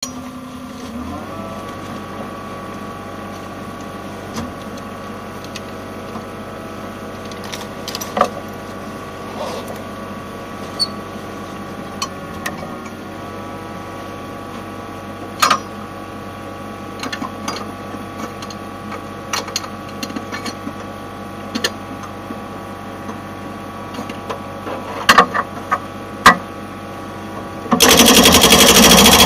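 Wacker Neuson 28Z3 mini excavator's diesel engine running steadily, with a few scattered clicks and knocks. About a second and a half before the end, the hydraulic breaker hammer starts hammering on concrete, much louder.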